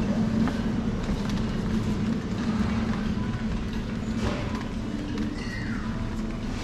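Shopping cart rolling steadily over a tiled supermarket floor, its wheels and wire basket giving a low, continuous rattling rumble.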